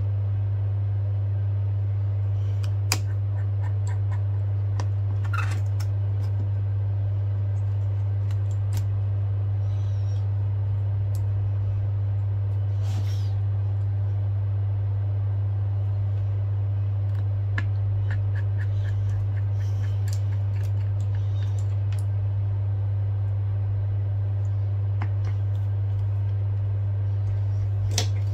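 A loud, steady low hum, with faint clicks and light taps from a small screwdriver and other repair tools working on an opened iPad's frame. Past the middle there is a short run of quick, light ticks.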